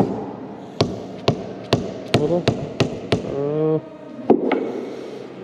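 Hammer blows on a John Deere hydraulic control valve block, sharp strikes about two to three a second, knocking its sections apart. The strikes pause briefly about three seconds in, then two more follow.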